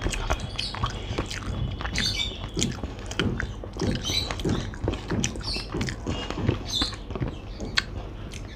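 Close-up eating sounds: rhythmic chewing, about two chews a second, mixed with the wet squish and small clicks of fingers mixing basmati rice into chicken curry on a plate.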